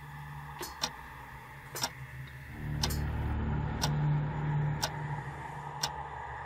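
A clock ticking, one sharp tick about every second. A low steady hum underneath swells louder about two and a half seconds in.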